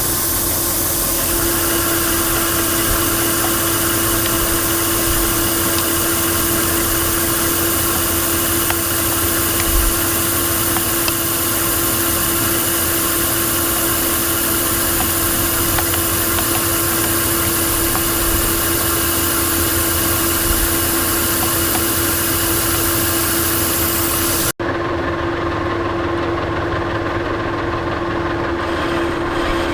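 Monarch Model K engine lathe running steadily, turning down the outside diameter of a steel part, with a constant hum and whine and a steady high hiss. Near the end there is an abrupt break, after which the high hiss is much weaker.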